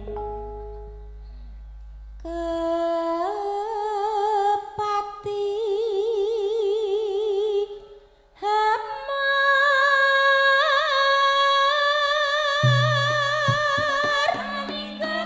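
A female voice singing a Javanese langgam Sragenan melody in two long phrases of held, wavering notes with wide vibrato, with a short break between them. Low accompaniment notes come in near the end.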